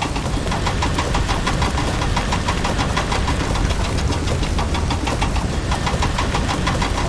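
A small engine running steadily with a rapid, even chugging, like a mini tractor's motor driving along.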